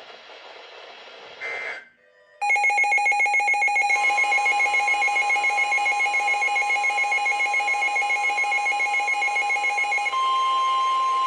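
A weather radio receiver's alert sounds as a loud, rapidly pulsing two-tone electronic alarm for about eight seconds. The steady 1050 Hz NOAA Weather Radio warning alarm tone runs underneath it. Near the end the pulsing alarm cuts off and the steady tone continues alone, the signal that a warning, here a tornado warning, is about to be broadcast.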